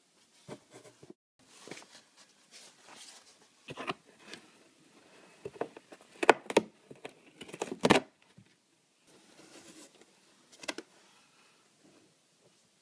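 Cardboard box scraping and rustling as a Sphynx cat shifts about inside it and claws at the slot: irregular scratches and knocks, with a few louder scrapes past the middle.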